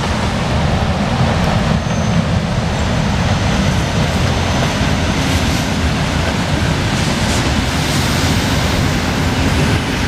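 Electric suburban multiple-unit train passing close by: a steady rumble of wheels on the rails.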